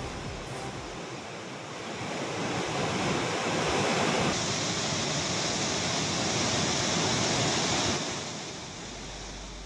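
Floodwater rushing in a river in spate: a steady, even rush of turbulent water that swells about two seconds in and eases off near the end.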